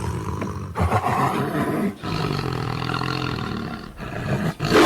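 Deep animal roars: one long roar that ends about two seconds in, then a second long roar that fades out near four seconds, with a shorter one near the end.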